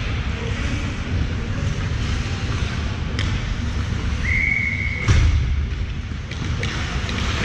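Ice rink ambience during a youth hockey game: a steady low rumble with scattered knocks of sticks and puck. About four seconds in a single whistle blast is held for about a second, and right after it comes a loud thump, the loudest sound here.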